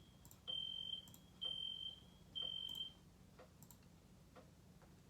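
Smoke alarm going off: three high-pitched beeps of about half a second each in quick succession, in the three-beep pattern that warns of smoke or fire.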